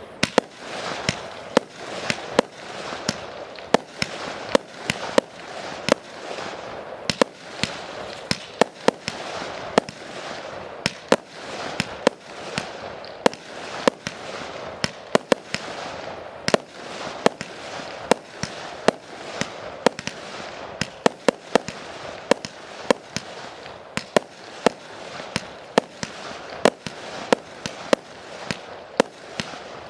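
Fireworks display: a rapid, irregular run of sharp bangs from bursting shells, often several a second, over a continuous noisy wash.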